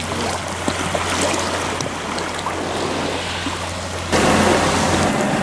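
Small sea waves lapping and washing over sand at the water's edge, with little splashes and trickles. About four seconds in, the sound cuts suddenly to a louder, steady rushing noise.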